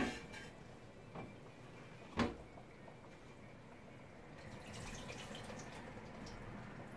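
Kitchen work at the counter: a sharp knock of a utensil at the start and another about two seconds in, with a lighter one between, then faint trickling and light scraping a little past halfway.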